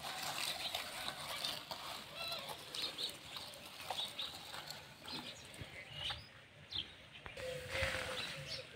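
Birds chirping outdoors, short calls repeating throughout, over scattered small clicks and scraping; a steady hum comes in near the end.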